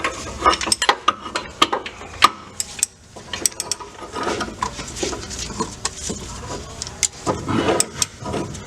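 Ratchet wrench clicking in short irregular runs, with metal clinks, as the crankshaft pulley is turned by hand to roll a stretch belt onto the AC compressor pulley.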